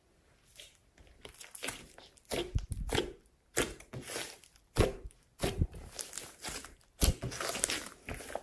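Hands squeezing and pressing a thick, glossy slime with glitter mixed in, making irregular sticky squelches and sharp pops. They are sparse at first and come thick and fast from about two seconds in.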